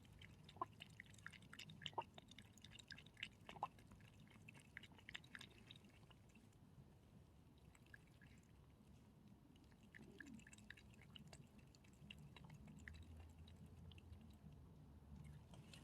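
Near silence with faint, scattered small clicks and crunches, most of them in the first six seconds, over a low steady hum.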